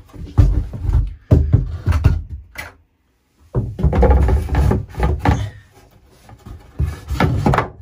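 Plywood battery cradle knocking and scraping against the shower-stall walls and floor as it is handled and dropped into place, a run of loud irregular thuds with a brief gap about three seconds in.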